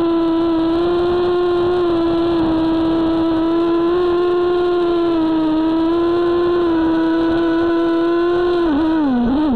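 Walkera Runner 250 quadcopter's motors and propellers whining steadily at one high pitch, heard from on board. Near the end the pitch dips and wavers as the throttle comes down, then starts to fall.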